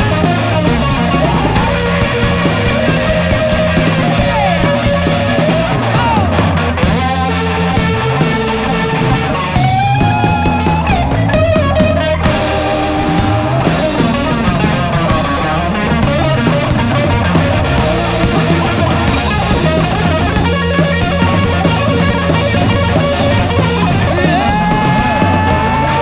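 Live rock band playing an instrumental passage: a lead line of bent, wavering notes over bass and drum kit.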